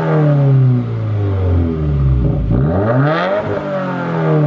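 2018 Subaru WRX's turbocharged 2.0-litre flat-four revved with the car standing still, through a MagnaFlow axle-back exhaust with the mufflers deleted. The revs drop away from one blip, then climb again about two and a half seconds in to a peak and fall back.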